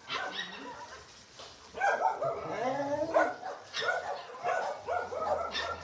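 Several dogs barking and yelping as they play-fight, a quick run of short calls starting about two seconds in.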